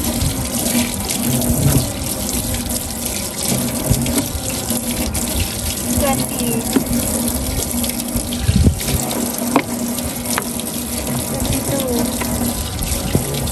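Outdoor water tap running in a steady stream and splashing onto the ground below, the splash breaking up as small fish are rinsed under it by hand.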